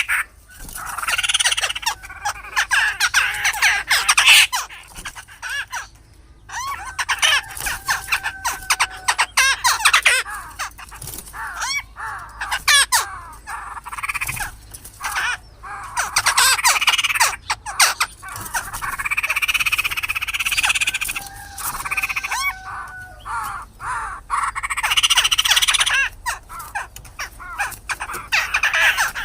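Black-throated laughingthrushes fighting: bouts of harsh, scolding chatter mixed with short whistled notes, broken by brief pauses.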